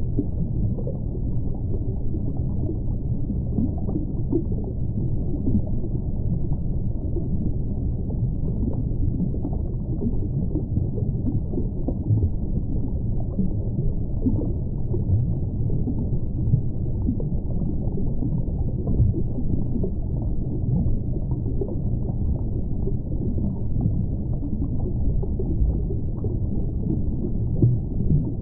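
Steady, muffled underwater ambience: a low wash of noise with no distinct events or tones.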